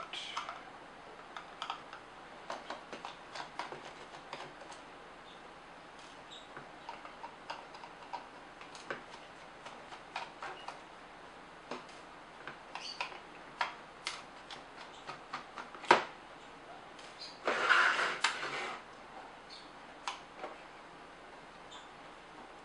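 Small irregular clicks and ticks of a screwdriver turning tiny screws out of a camera flash's plastic housing, with the screws tapped down on a table. One sharp click comes about two-thirds of the way in, followed by about a second of plastic scraping and rustling.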